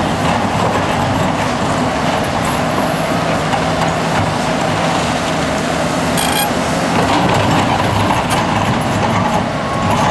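Liebherr R974B crawler excavator's diesel engine running steadily under load as its bucket digs into broken rock, with rock clattering and a brief high-pitched screech about six seconds in.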